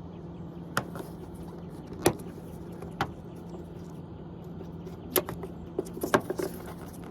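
Scattered sharp clicks and taps of small plastic light parts being handled, about seven in all, the loudest about two seconds in and again about six seconds in, over a steady low hum.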